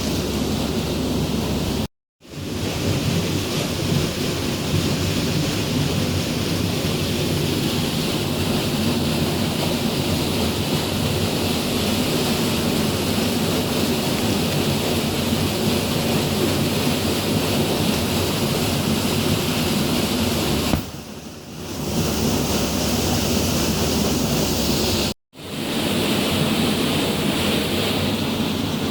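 Steady roar of rushing water with a deep rumble, which drops out abruptly twice for a moment.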